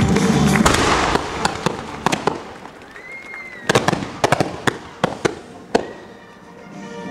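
Fireworks going off: a string of sharp bangs, several in quick pairs, with a brief whistle that rises and falls about three seconds in.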